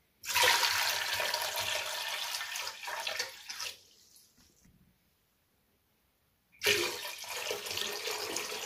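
Water poured from a jug into an empty stainless steel pot, splashing on the metal bottom, in two pours: the first lasts about three and a half seconds, then a pause of near silence, and the second starts about two-thirds of the way in.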